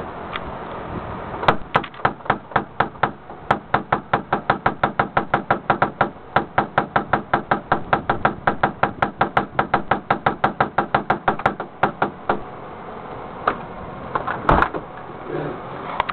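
Rapid, even knocking on a front door, about five knocks a second for some ten seconds, then two louder single bangs. Someone shut out of the house is trying to get back in.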